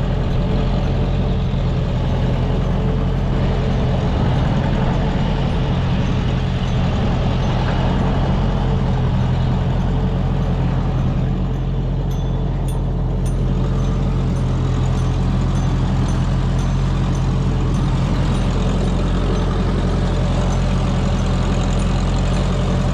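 Classic Massey Ferguson tractor engine running steadily at an even speed while pulling the potato planter.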